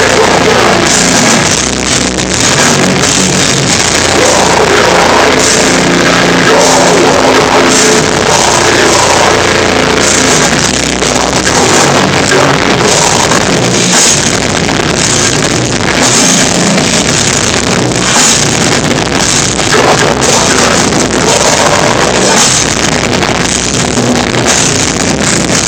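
A hardcore band playing live: distorted guitars and pounding drums with crashing cymbals, heavily distorted by a recording device overloaded by the volume.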